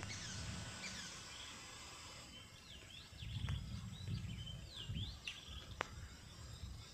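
Wild birds calling in woodland: short, quickly rising and falling notes and fast repeated chirps over a steady outdoor background. A few low rumbles come in the middle, and there is one sharp click near the end.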